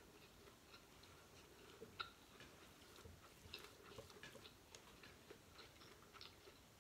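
Faint mouth-closed chewing of seafood, with scattered small clicks and one sharper click about two seconds in.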